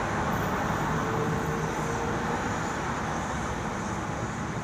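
Steady road traffic noise, an even rumble and hiss with no distinct events.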